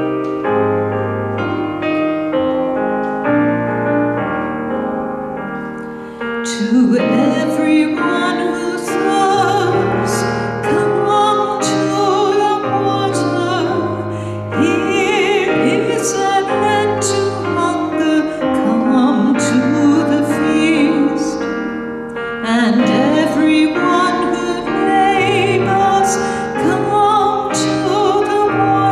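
A church hymn: a keyboard plays the introduction in steady chords, then a woman cantor comes in about six seconds in, singing with vibrato over the accompaniment. The singing breaks briefly between phrases and carries on.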